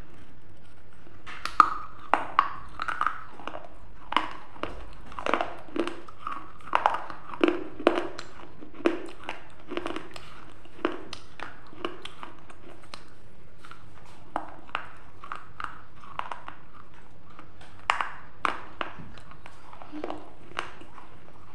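Close-miked biting and chewing of a piece of baked terracotta clay: sharp, irregular crunches with wet mouth sounds. They come thickly in the first half, thin out, and return with two loud crunches near the end.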